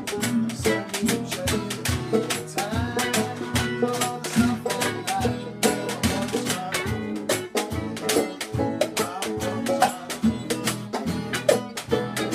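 Jug band playing an instrumental tune: strummed acoustic guitar and other guitars over a washtub bass, with a washboard scraped and tapped in a quick, steady run of sharp clicks.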